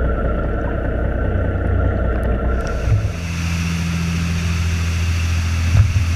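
Boat engine drone heard underwater, a muffled low rumble with a steady whine. About three seconds in it gives way to a sportfishing boat's engines running at speed above the water, with a steady hiss of wind and spray and a short knock near the end.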